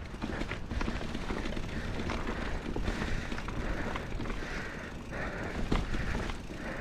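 Mountain bike rolling down a rocky dirt trail: Maxxis Dissector tyres crunching over dirt and stones, with the bike frame and drivetrain rattling and clicking irregularly. A steady rumble of wind buffets the microphone.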